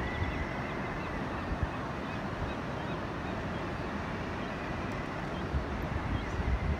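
Steady wash of ocean surf with wind buffeting the microphone, heavier near the end, and faint seabird calls scattered throughout.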